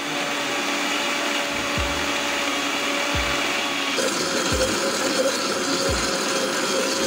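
Electric mixer grinder running steadily, grinding mint leaves, chillies and water into a wet green paste. Its hum steps up in pitch and brightens about four seconds in.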